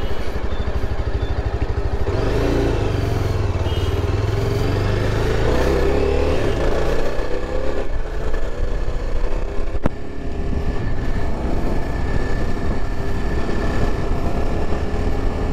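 Yezdi Adventure's single-cylinder engine under way, revs rising as it pulls away about two seconds in, then running steadily at a road pace. There is a single sharp click near ten seconds in.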